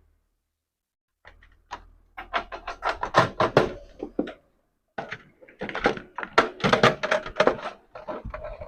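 A run of clattering knocks and clicks as electronic boxes and cables are handled and shifted on a surface, starting about a second in, with a short pause around the middle.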